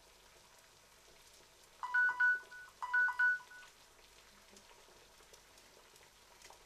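Mobile phone timer alarm going off: two short bursts of two-tone electronic beeps about a second apart. It signals that the egg's six-minute boil is up.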